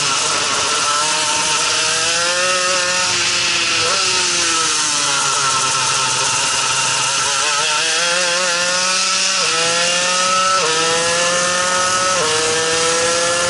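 Two-stroke shifter kart engine at speed. The revs climb, fall away through a corner, then climb again with three quick upshifts in the last few seconds, each a sudden drop in pitch.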